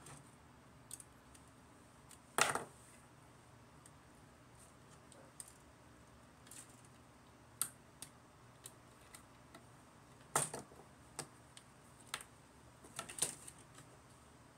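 Hard plastic Gundam model kit parts clicking and snapping in the hands as they are handled and fitted: a dozen or so scattered sharp clicks at uneven gaps, the loudest about two and a half seconds in and a cluster of them near the end.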